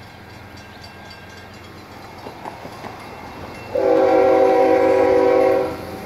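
CSX freight locomotive's air horn sounding one steady blast of about two seconds, starting a little past halfway and cutting off near the end. A low rumble of the approaching train builds beneath it.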